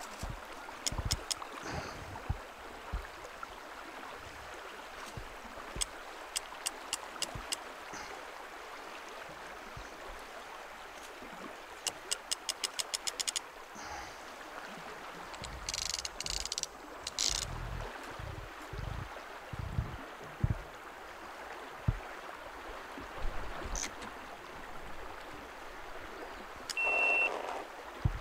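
Steady rushing of river water, with short runs of rapid, evenly spaced clicking from a fishing reel as the line is worked by hand. A brief high whistle sounds near the end.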